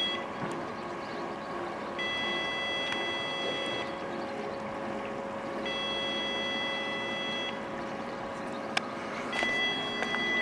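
Electronic warning signal sounding long, high, chord-like beeps, each about two seconds long, repeating about every four seconds, three times.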